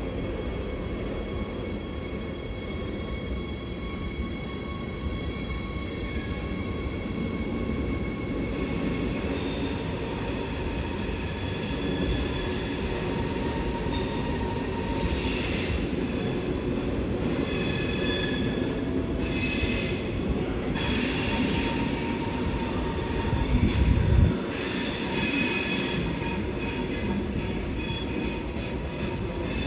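Train wheels squealing on the rails, several high steady tones that come and go over a low rumble of rolling stock, with the squeal setting in about a quarter of the way through. A brief low thump about three-quarters through is the loudest moment.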